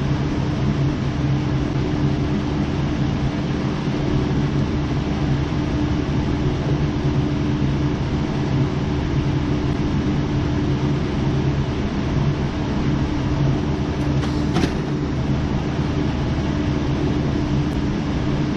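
A steady low mechanical hum, with one short click about three quarters of the way through.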